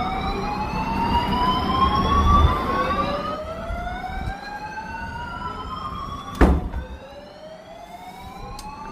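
Fire engine siren sounding a slow wail that sweeps up in pitch every few seconds, with a truck engine rumbling under it, loudest a couple of seconds in and then fading as the siren goes on. A sharp knock, the loudest single sound, about six seconds in.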